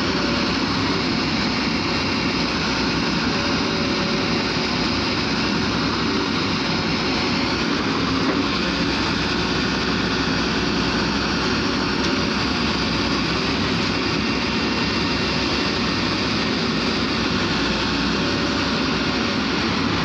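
Volvo wheeled excavator's diesel engine running steadily, heard close by.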